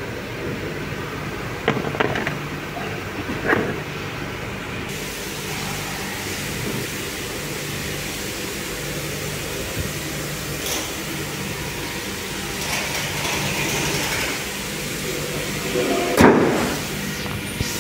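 A car bonnet being shut, one loud thud about sixteen seconds in, over a steady low hum; a few short clicks and knocks from parts being handled come about two and three and a half seconds in.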